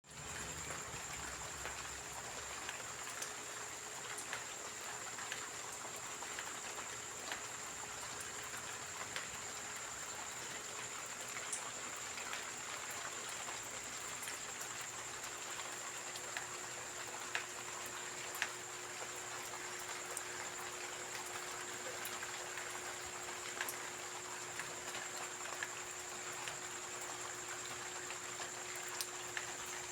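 Steady rain falling, an even hiss with scattered louder drops ticking. A steady high-pitched tone runs underneath.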